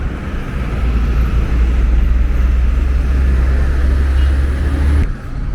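Road traffic with a heavy, steady low rumble, which cuts off abruptly about five seconds in.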